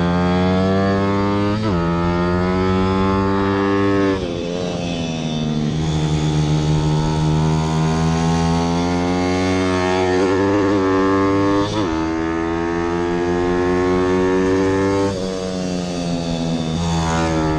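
Zongshen 160 pit bike's single-cylinder four-stroke engine heard from an onboard camera at race pace. The revs climb steadily under acceleration, break off sharply for gear changes about a second and a half in and again near twelve seconds, and fall away when the throttle closes for corners about four seconds in and again near the end.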